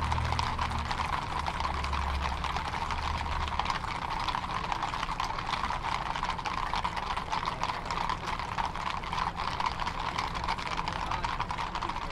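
Hooves of many shod cavalry horses walking on an asphalt street: a dense, overlapping clatter of clip-clops. A low steady hum lies underneath for the first few seconds.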